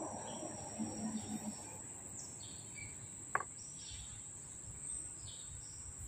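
Steady high insect trilling with short bird chirps now and then, and one light click about three seconds in.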